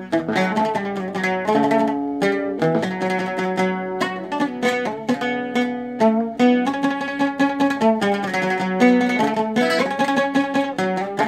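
Solo oud played with a pick: a flowing melody of quick plucked notes.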